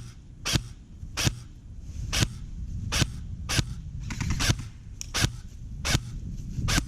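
Airsoft rifle firing single shots, about ten sharp cracks at an uneven pace of roughly one a second, with a quick run of three or four shots about four seconds in. A steady low rumble runs underneath.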